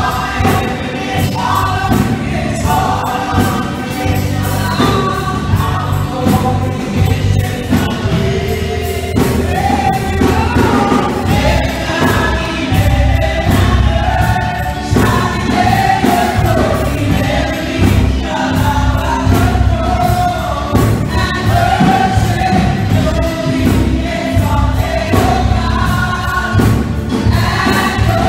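Gospel praise-and-worship singing: a group of women singers and a choir sing together into microphones over amplified accompaniment with a strong bass.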